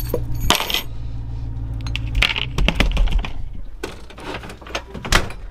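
A bunch of keys clinking and jingling as it is set down onto the lid of a portable fridge, a sharp clink about half a second in and a few more a couple of seconds later, over a steady low hum.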